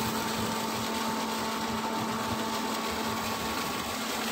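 Steady mechanical hum of the ship's onboard machinery: a constant low drone with a fainter, higher whine above it.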